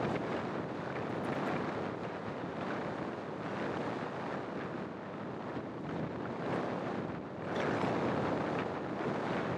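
Wind buffeting the microphone of a camera mounted on the outside of a moving car, with the car's road noise underneath. The rush swells louder about three-quarters of the way through.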